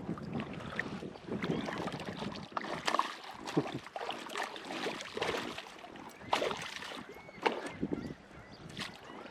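Irregular splashing and knocking of a small hooked pike being brought in beside an inflatable boat.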